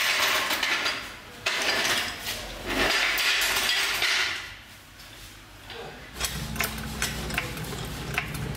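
Steel trolley floor jack rolled across a concrete shop floor by its handle, in three pushes of about a second each, its wheels and frame rattling with metallic clinks. From about six seconds in a steady low hum with faint ticks.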